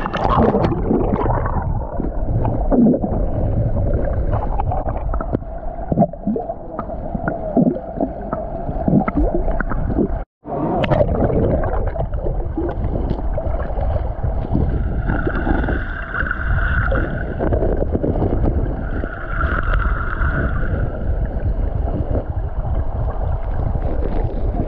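Hot-spring river water rushing and gurgling, heard muffled through an action camera held underwater, with scattered knocks of gravel and stones as a hand scoops at the riverbed. The sound cuts out briefly about ten seconds in, and a wavering hum comes and goes twice in the second half.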